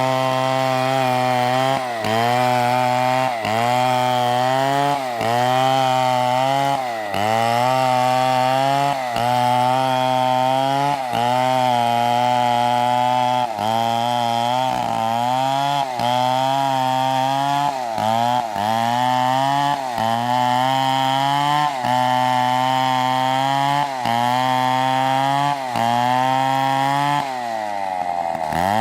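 Two-stroke chainsaw running at high revs, cutting a dead palm trunk. Its pitch dips briefly and recovers every second or two, and about a second before the end the revs fall away.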